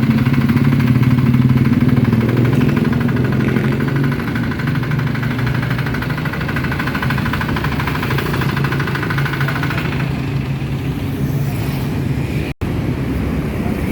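The 5.2 hp single-cylinder diesel engine of a Firman FTL 900 HD farm machine running steadily, its level dipping slightly a few seconds in. The sound breaks off very briefly near the end.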